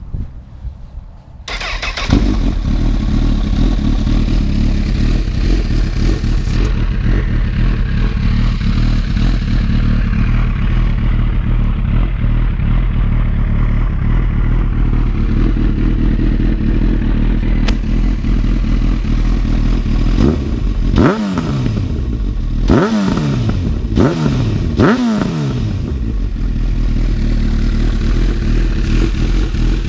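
Honda CB1000R's inline-four engine through a Yoshimura aftermarket exhaust, starting up about two seconds in and idling steadily. Near the end of the second third it is blipped several times in quick succession, the pitch jumping up and falling back each time, then it returns to idle.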